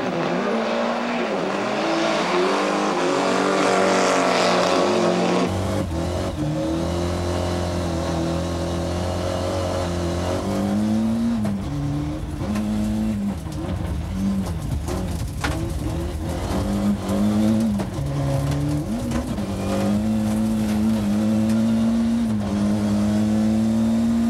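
Rally car engine at full throttle in a race. After about five seconds the sound changes abruptly to the engine heard from inside the cockpit: a deeper, steady drone whose pitch rises and drops again and again as the driver works the throttle.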